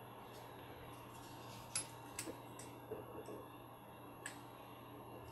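Faint, scattered clicks and taps of small plastic RC axle parts and a thin hex driver being handled and set down, about half a dozen separate clicks over a steady low room hum.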